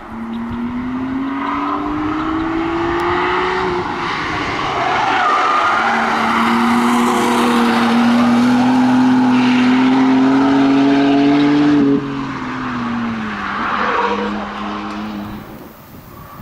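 Camouflaged prototype sports car with quad exhausts accelerating hard on a racetrack. The engine note rises steadily through two long pulls, cuts off sharply about twelve seconds in, then drops in pitch before a short last burst of throttle.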